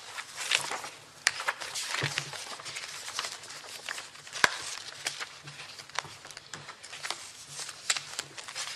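Papers rustling and pages being turned close to desk microphones, with scattered small clicks and knocks at irregular moments.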